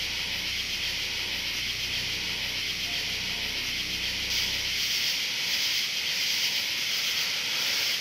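A steady high hiss, with a low sustained drone underneath that stops about five seconds in.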